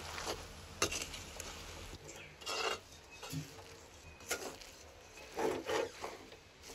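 A spoon scraping and knocking in a metal pot as a chopped winged bean, jackfruit seed and grated coconut mixture is stirred: a few short separate scrapes and taps with quiet gaps between.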